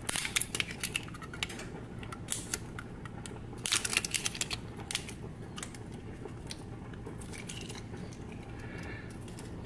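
Clicks and crackles of fingers picking at and peeling the plastic seal off a glass jar's metal lid, in an irregular run that is densest about four seconds in, then giving way to a faint steady low hum.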